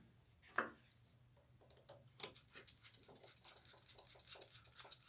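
Faint small clicks and scrapes, several a second, starting about two seconds in: a screwdriver turning the screw of a plastic terminal-block connector to clamp a wire, with gloved hands handling the wires.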